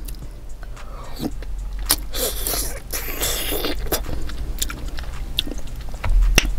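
A person chewing a soy-sauce-dipped soup dumpling close to the microphone: wet mouth clicks, with a longer slurp about two seconds in.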